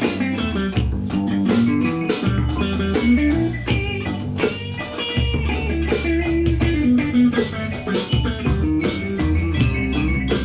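A live band playing an instrumental passage: electric guitar picking a melody over bass guitar and a steady drum beat.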